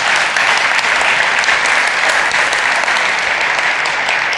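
Conference audience applauding steadily, many hands clapping together.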